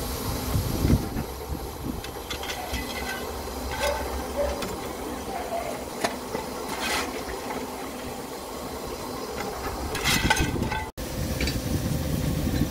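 Miniature steam locomotive standing with steam hissing, with a few brief louder spurts of hiss.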